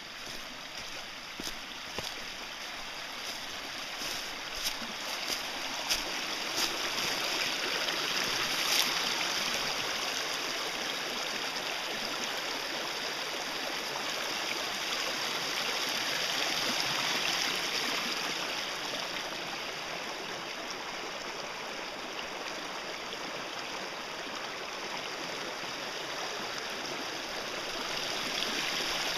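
Small woodland stream running over rocks and a little riffle, a steady rushing that grows louder a few seconds in and eases off in the second half.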